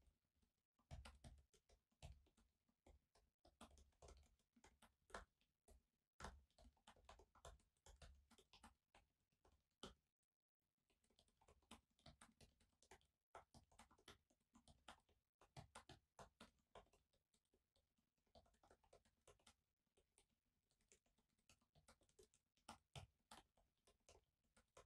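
Faint typing on a laptop keyboard: irregular runs of soft key clicks, with a short pause about ten seconds in.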